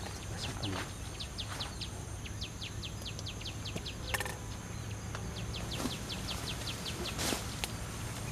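Outdoor bird and insect chorus: a bird gives a long run of short, high falling chirps, about three to four a second, over a faint steady insect drone. A brief click sounds about four seconds in.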